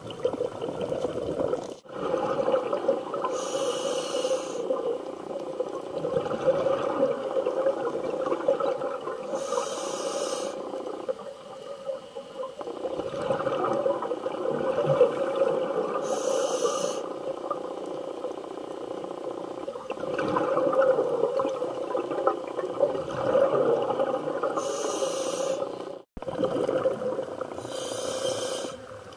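Scuba diver breathing through a regulator, heard underwater through a camera housing. A dense bubbling rumble runs throughout, and a short high hiss comes every several seconds, about five times.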